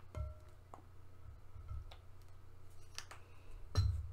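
A few separate light clicks and taps of small plastic paint bottles and lids being handled and set down, some with a short ring after them, the sharpest just before the end, over a low steady hum.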